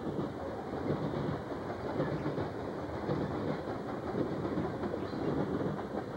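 Coal train of open-top hopper cars rolling past, a steady rumble of steel wheels on the rails.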